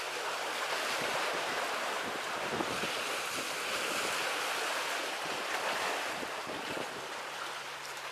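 Sea waves washing and breaking against the concrete tetrapods of a breakwater, a steady surf wash, with wind buffeting the microphone.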